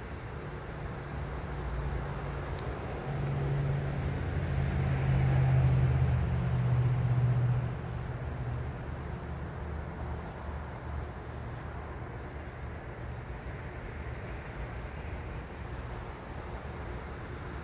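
Low, steady engine hum that swells louder from about three seconds in and drops back near eight seconds.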